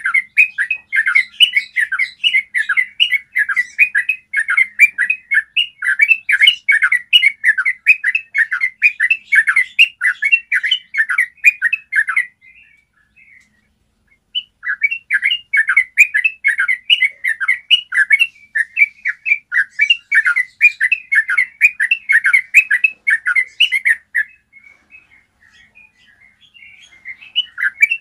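Yellow-vented bulbul singing its long rolling 'ropel' song: a fast run of clear, repeated chattering notes that goes on for about twelve seconds, breaks off for about two seconds, runs again for about ten seconds, and stops with scattered notes before starting once more near the end.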